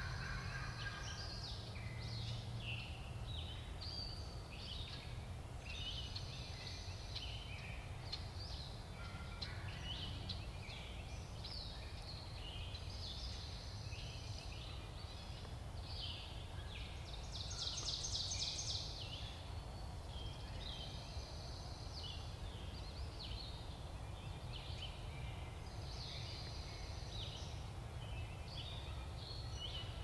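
Woodland songbirds chirping throughout, with a bright rapid trill about eighteen seconds in, over a steady low background rumble.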